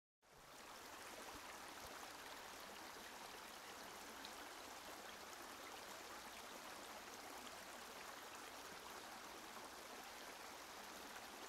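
Shallow stream running over rocks: a faint, steady rush of water that starts a moment in and holds evenly.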